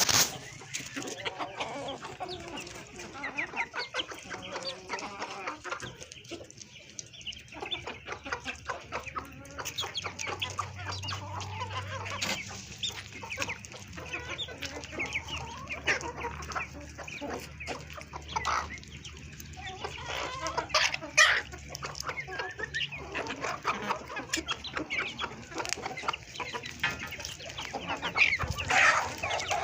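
Chickens clucking, with many short, sharp clicks mixed in; a louder call stands out about two-thirds of the way in and again near the end.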